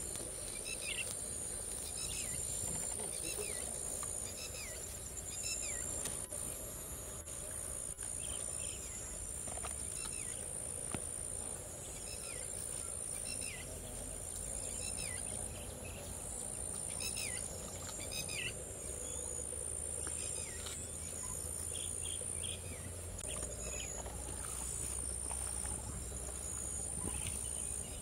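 Insects shrilling steadily at a high pitch, with a bird's short falling chirps repeated through it.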